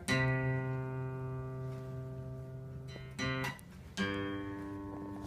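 Acoustic guitar chords strummed and left to ring: one near the start, a short one cut off a little after three seconds, and another just after four seconds that rings on.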